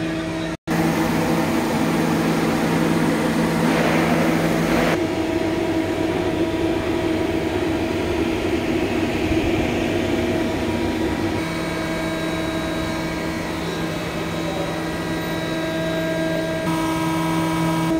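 Steady machine hum with several held tones from a powered-up Johnford TC-35 CNC lathe. The sound cuts out for an instant about half a second in, and there is a short hissier stretch around four seconds in.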